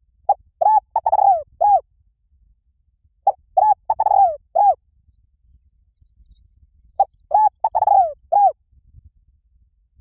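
Spotted dove cooing in a repeated phrase, three times: each phrase has a few short coos and one longer coo that falls in pitch, about three seconds apart. It is the call used as a lure to draw spotted doves in.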